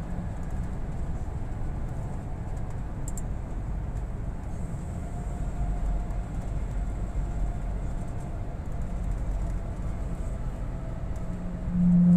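Steady low rumble of engine and tyre noise heard inside a vehicle driving through a road tunnel. Near the end a louder low hum comes in.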